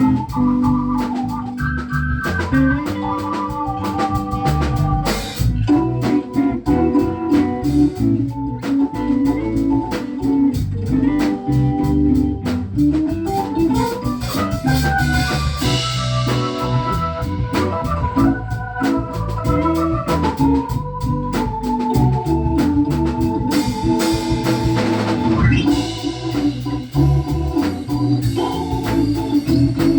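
Instrumental break of a live band: an organ plays a solo of held and sliding notes over drums and bass, with cymbal swells about halfway through and again near the end.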